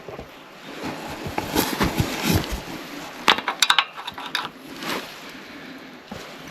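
Light clicks and small metallic clinks of hand tools working on a lawnmower's carburetor, with a quick run of sharp clicks a little past halfway.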